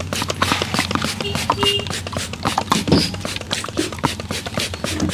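Rapid, irregular slaps and pats of a barber's hands on a customer's head during a head massage, several strokes a second over a steady low hum.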